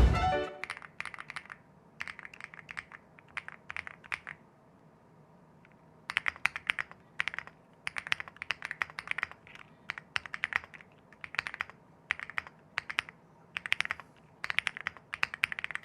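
Typing in bursts on a Sugar65 65% aluminium-case mechanical keyboard with PBT keycaps, with a pause of about two seconds before the second run of keystrokes. The keystrokes are a clean, crisp, metallic clack.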